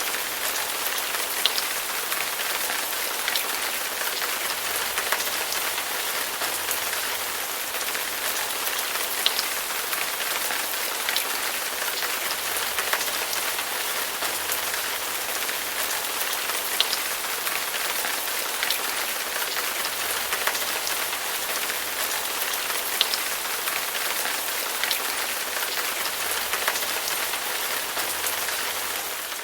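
Steady rain falling on a surface, with scattered louder single drops ticking through it every second or two.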